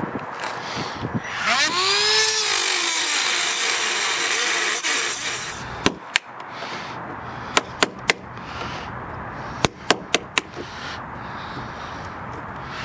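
Power drill run for about four seconds on a stuck hinge screw in a wooden door, its pitch sweeping as it spins up. It is followed by several sharp clicks.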